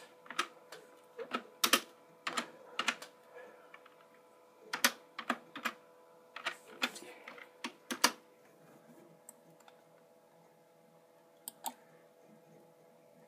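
Fingers typing a search on a device: irregular sharp taps and clicks in short clusters, with pauses between them and a pair near the end. A faint steady hum runs underneath.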